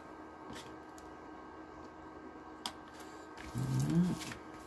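Faint steady hum of an Air Buddy shoe dryer running, with a few light clicks from handling plastic drill bags. A short rising vocal hum comes near the end.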